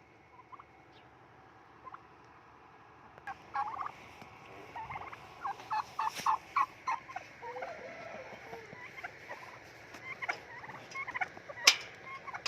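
Chickens clucking: a string of short calls begins about three seconds in and is thickest around the middle. A sharp click or knock near the end is the loudest sound.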